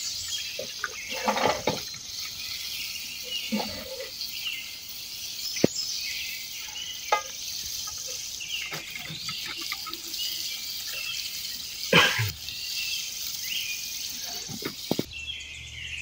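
Birds chirping over a steady high hiss of insects, with scattered clicks and knocks throughout.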